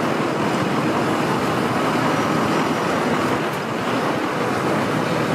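Steady city street noise: a continuous hum of traffic echoing between tall buildings.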